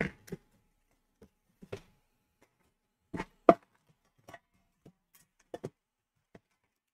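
A metal trading-card tin being handled and opened: scattered light clicks and knocks of the metal tin and lid, with one sharper knock about halfway through.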